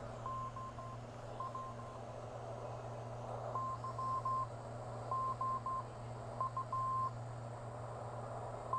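Morse code (CW) from a pocket uSDX-clone HF transceiver: a single beeping tone keyed on and off in dots and dashes, in irregular groups, over a steady hiss of band noise and a low hum.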